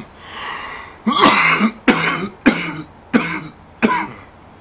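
A man coughing repeatedly, a breath drawn in and then five harsh coughs in quick succession.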